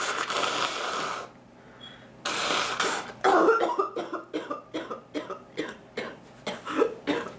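A woman's coughing fit: two long, harsh noisy bursts, then from about three seconds in a fast run of short hacking coughs, roughly two or three a second.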